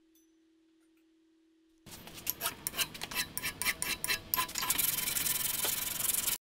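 After a near-silent start, a hand file rasps over metal clamped in a vise, starting about two seconds in with a run of quick strokes. Near the end it gives way to sandpaper rubbing fast and continuously, which stops abruptly.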